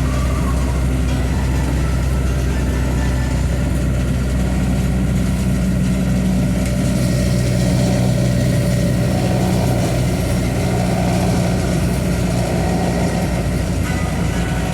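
Truck's diesel engine running steadily while driving, heard from inside the cab with road noise; its hum grows a little stronger about four seconds in.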